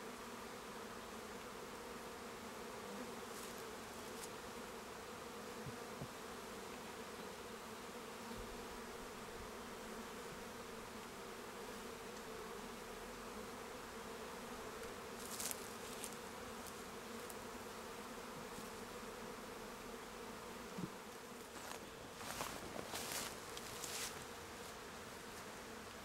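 Honey bees buzzing steadily around opened hives, a continuous hum. A few short rustles break in about halfway through and again in a brief cluster near the end.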